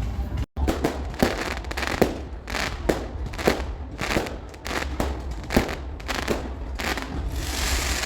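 Fireworks display going off: a quick, irregular run of sharp bangs, roughly one or two a second, with crackling between them, then a hissing crackle near the end.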